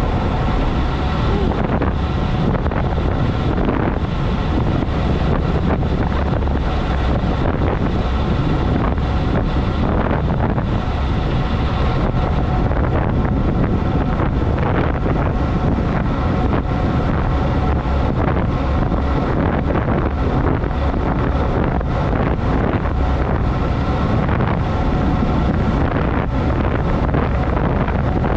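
Steady, loud wind noise buffeting the microphone of a camera carried on a moving road bike.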